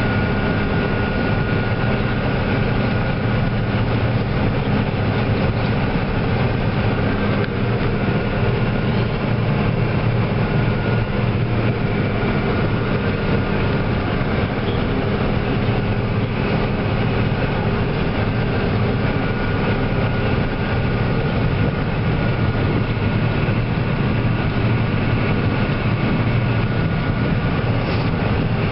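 Heavy harvest machinery running steadily: a constant engine drone with a steady whine on top.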